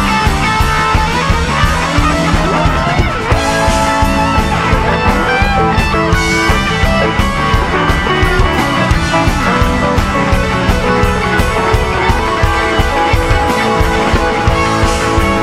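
Live rock band playing an instrumental jam: electric guitars soloing over bass and a drum kit, loud and steady.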